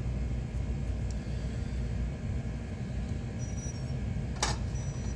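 Steady low background rumble with light handling of a tiny whoop drone, and one sharp plastic click about four seconds in as the drone is set down on the scale's test stand.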